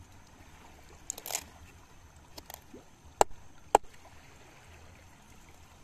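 A knife cleaning a fish over a wooden log: a short scrape about a second in, a few light ticks, then two sharp knocks of the blade about half a second apart past the middle.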